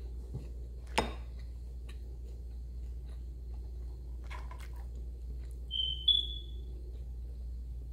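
Eating by hand: a sharp click about a second in, a few soft clicks and smacks midway, and a brief high squeaky whistle just as food goes to the mouth, over a steady low hum.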